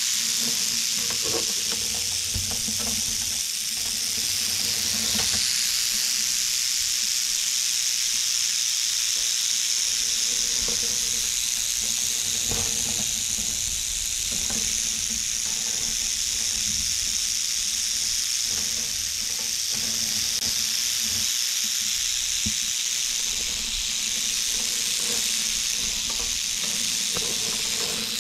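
Timber rattlesnake shaking its rattle: a steady, high, dry buzz that goes on without a break.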